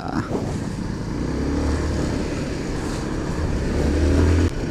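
Small motor scooter engine running steadily while riding, with wind rush on the microphone; the engine sound drops off abruptly near the end as the throttle eases.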